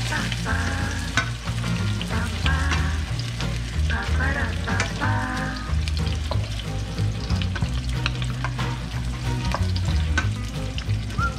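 Onion rings sizzling in oil in a nonstick frying pan while a wooden spatula stirs and scrapes them, with short clicks of the spatula against the pan, over background music.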